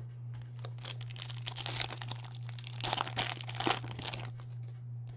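Clear plastic wrapper of a basketball trading card pack crinkling and tearing as it is opened by hand: about four seconds of crackly rustling, loudest near the end. A steady low hum sits underneath.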